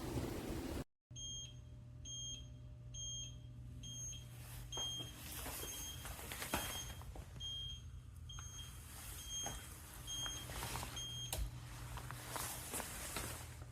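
Electric scooter turn-signal indicator beeping, a steady series of short, high electronic beeps that stops near the end, over a low hum and scattered knocks.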